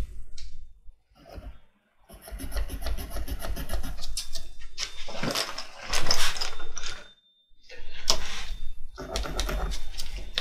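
Rubbing and scraping from handling a wooden board and a tape measure on a workbench, with a low rumble underneath and two short gaps of silence.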